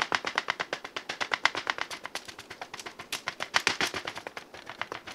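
A metal fork's tines quickly and repeatedly stabbing a rolled-out fathead pizza dough, about ten sharp taps a second: docking the crust so it doesn't bubble in the oven.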